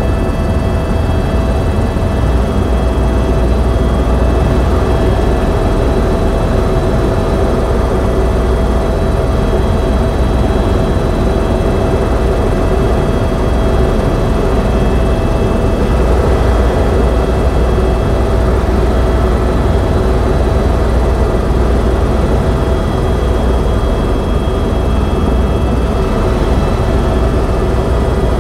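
Turbine tour helicopter in cruise flight, heard from inside the cabin: a steady, loud low rumble of engine and rotors with a constant whine of several high tones on top.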